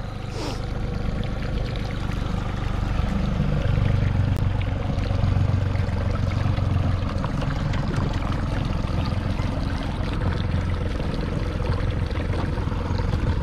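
Fishing boat under way: a steady motor hum under water rushing past the hull. It builds over the first few seconds, then holds steady.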